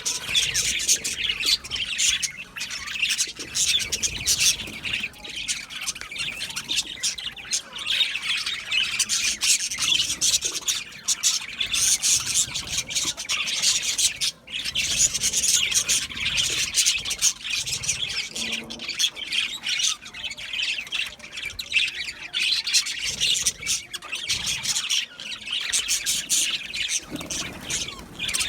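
Budgerigars chirping and chattering without pause, a dense stream of quick, high-pitched notes.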